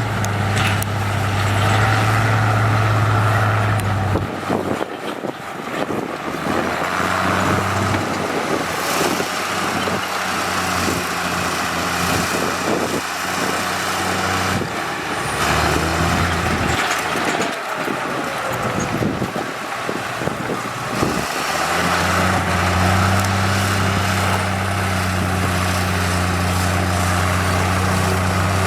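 Heavy diesel construction machinery running, with the engine hum dropping out and returning several times and a stretch of clanks and knocks in the middle.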